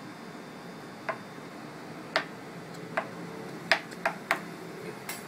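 Sharp, irregular clicks, about seven of them, from a notched metal radius gauge being set and shifted against the frets and strings of a guitar neck.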